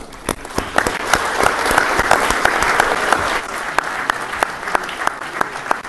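Audience applauding, building over the first two seconds and then thinning out into sparser, distinct claps.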